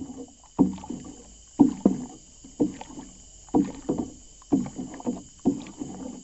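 A wooden stick stirring fermented waste decomposer liquid in a 200-litre plastic drum, with a slosh and splash about once a second. The culture has fermented for seven days and is ready.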